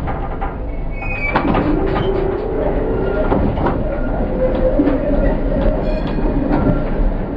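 Passing trams in a track junction: steel wheels squealing on the curves, with sharp clicks as they run over the points and crossings, over a steady rolling rumble.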